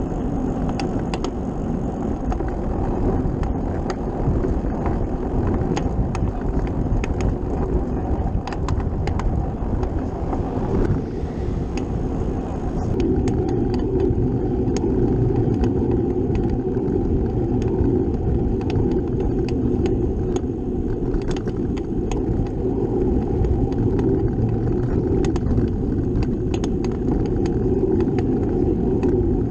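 Bicycle riding noise: a steady rumble of tyres on the road and wind on the microphone, with scattered sharp clicks and rattles from the bike. The rumble grows louder about thirteen seconds in.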